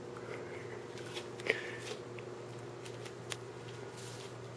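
Loose sheets of paper rustling and crinkling under cats' paws as they walk across pages spread on a wooden floor. There are a few light ticks and one sharper click about a second and a half in, over a steady low hum.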